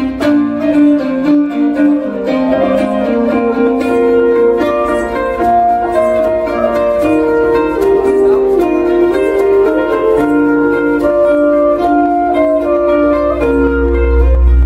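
Live instrumental music: an end-blown flute plays a held, stepping melody over a plucked string instrument. A deep low bass sound swells in near the end.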